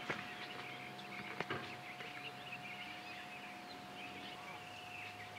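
Distant outdoor basketball play: two sharp knocks of the ball about a second and a half apart, over faint high chirps and a thin steady tone.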